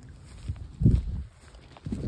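Two dull, low thumps about a second apart, the first the louder.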